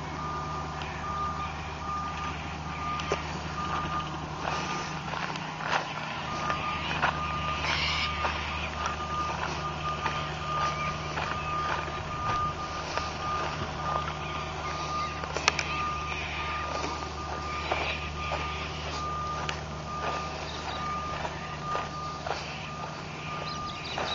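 A vehicle's reversing beeper sounding a high beep again and again, over a steady low engine hum.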